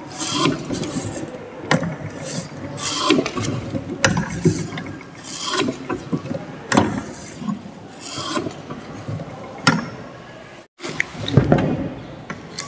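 Hand-cranked paper cutting machine running: its chain, sprockets and Geneva wheel mechanism rattle and clank steadily, with a sharp metal clack about once a second. The sound drops out briefly near the end.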